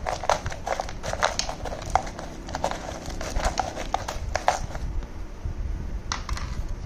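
A spoon stirring dry rolled oats, nuts and seeds in a plastic jar: quick, irregular scraping and rattling clicks that stop about two-thirds of the way through, with a couple of lighter knocks near the end.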